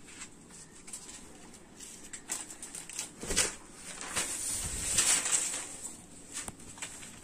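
Cotton saree fabric rustling and being handled as it is spread out, with scattered clicks and the loudest rustles about halfway through.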